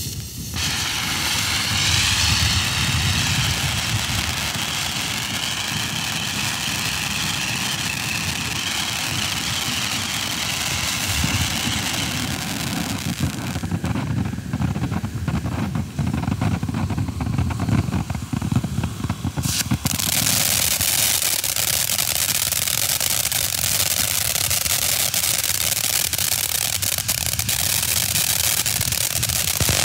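Fox Fireworks Koi Fish ground fountain firework burning: a steady rushing roar with a wavering high whistle over roughly the first twelve seconds, then a stretch of dense crackling, then a bright hissing spray of sparks.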